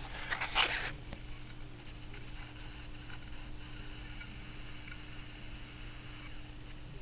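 Steady faint room tone with a low hum and hiss, broken by a short rustle less than a second in.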